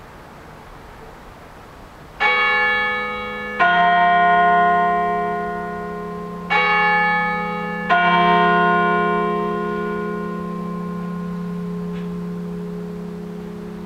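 Rincker-cast bronze church bell, the Reformationsglocke tuned to E-flat (es′, 1,543 kg), swinging up alone for the pre-service ringing. It strikes four times, in two pairs, starting about two seconds in, and each strike rings on over a long, deep hum.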